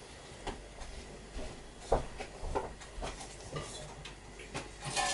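Scattered light knocks and clinks, about half a dozen, of a metal box grater and other kitchen things being handled.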